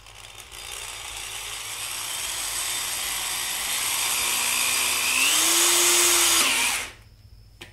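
Electric drill running in forward, the hole saw's pilot bit boring through a rubber snowmobile track. The sound builds over several seconds, the motor's pitch steps up about five seconds in, and it stops abruptly near the end.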